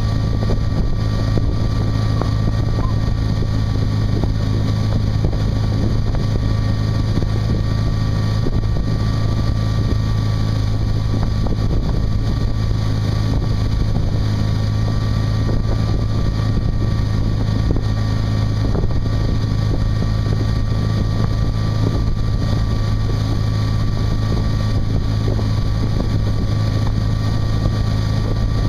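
Ski boat's engine running at a steady towing speed, a constant low drone with a faint steady whine above it, under the hiss of the wake and wind on the microphone.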